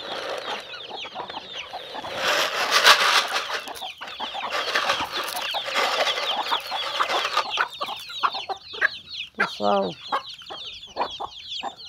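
A farmyard flock of hens and chicks clucking and peeping as they peck at scattered feed, with many short high falling peeps from the chicks. A loud rustling noise rises over them for several seconds in the first half.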